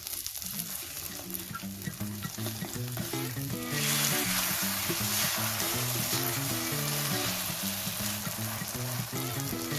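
Egg and sweet preserved radish frying in hot oil in a pan, sizzling steadily; the sizzle grows much louder about four seconds in. Background music plays underneath.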